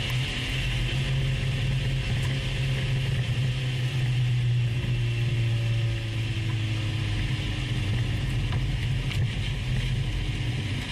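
Mazda MX-5 NC Miata's four-cylinder engine running through its quiet stock exhaust while the car is driven on track, a steady low drone whose pitch drifts slowly up and down as the revs change.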